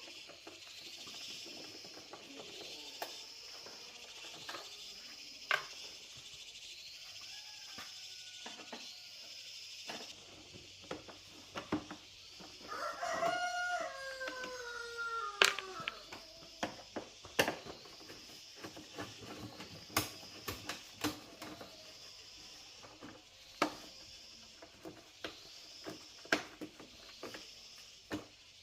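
A rooster crowing once, about halfway through, a long call that falls in pitch at its end. Around it, a high chirp repeats about every second and a half, with scattered sharp clicks and knocks.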